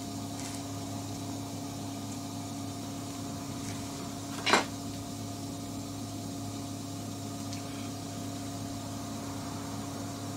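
A low, steady mechanical hum, with one sharp metal click about four and a half seconds in as the water pump parts are handled and test-fitted.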